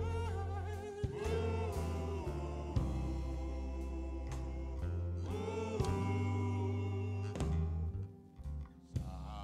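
Sung music with instrumental accompaniment: a voice holding wavering notes over steady low bass notes. The music drops away briefly near the end.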